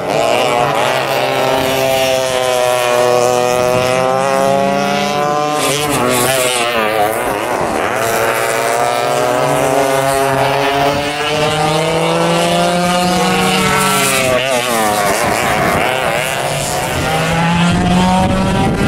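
Alley Kat II vintage dual-rear-engine go-kart running on track. The engines' pitch climbs and drops again and again as the kart speeds up and slows.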